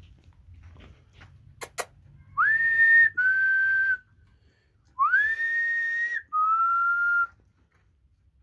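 A person whistles a two-note call twice: each call rises quickly to a held high note, then drops to a lower steady note, and the second call is longer. Two sharp clicks come just before the first call.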